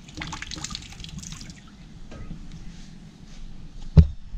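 Water dripping and trickling from a soaked roll of fiberglass exhaust wrap as gloved hands squeeze it out over a bucket. One sharp low thump about four seconds in.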